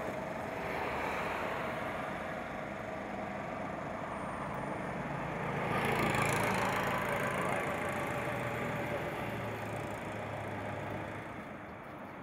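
Road traffic: vehicle engines running steadily with tyre noise, one vehicle passing close and loudest about six seconds in.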